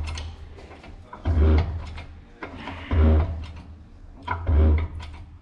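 Hydraulic engine hoist being worked under a hanging V8 engine: a creaking mechanical stroke with a deep clunk, repeating about every one and a half seconds.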